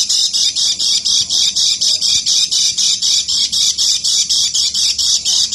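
Kecial kuning white-eye giving a fast, unbroken run of high, harsh chattering notes, about nine a second: the 'ngeker' call used as therapy audio for other birds.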